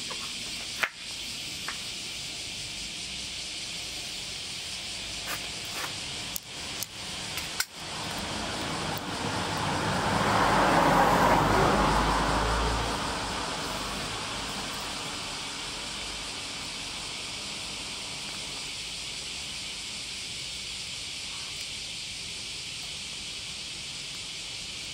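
Steady outdoor hiss with a few sharp clicks in the first eight seconds; about nine seconds in, a passing vehicle swells up and fades away over some five seconds.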